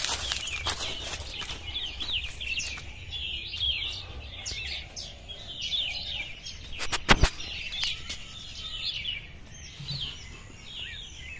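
Many small birds chirping continually, a dense chatter of short quick chirps. Two sharp knocks about seven seconds in.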